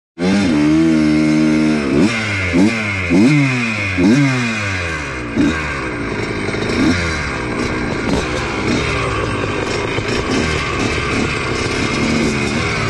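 A 1982 Yamaha YZ100's two-stroke single-cylinder engine runs at a steady fast idle and is then blipped about six times, each rev rising and falling sharply. Other two-stroke motocross bikes idle and rev around it, waiting at the start line.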